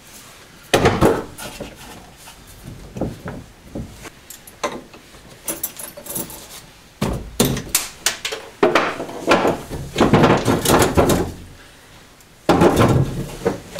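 Irregular knocks, clicks and rattles of plastic and metal parts and tools being handled and worked loose around a car's dashboard and steering column, heard inside the car.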